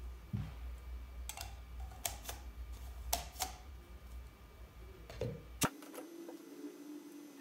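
The hard plastic parts of a handheld portable espresso maker are unscrewed, fitted together and set down on a bench: a string of separate clicks and knocks, the last and loudest just before six seconds in. A steady hum starts at that point.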